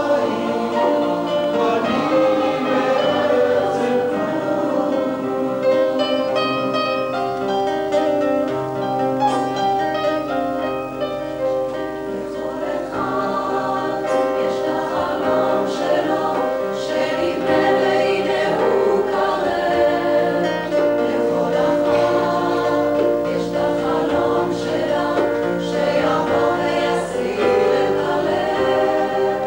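Mixed choir of men's and women's voices singing a song in harmony, with guitar accompaniment.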